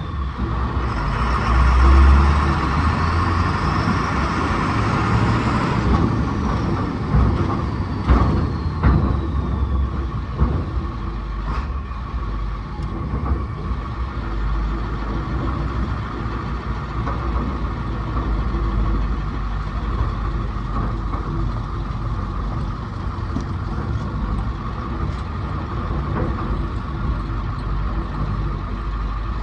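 A heavy vehicle engine running steadily. It is louder for the first several seconds, with a whine that rises and falls, and there are a few short knocks and clanks partway through.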